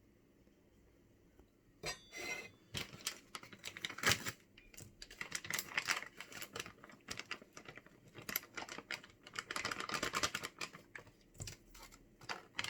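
A spoon clicking and scraping against a dish in quick, irregular strokes as cooked rice is served onto a plate. The clatter begins about two seconds in.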